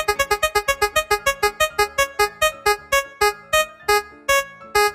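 Spinning prize-wheel sound effect: a rapid run of short electronic keyboard notes, one per tick of the wheel, slowing steadily from about seven a second to about two a second as the wheel winds down toward a stop.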